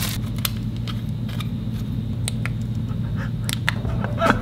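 Scattered small clicks and plastic crinkling as clip-on LED lights for Crocs are unwrapped from their plastic bags and snapped into the clogs, over a steady low hum.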